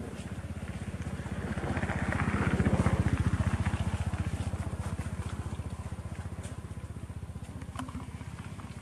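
An engine chugging with a rapid, even beat, swelling to its loudest about three seconds in and then fading.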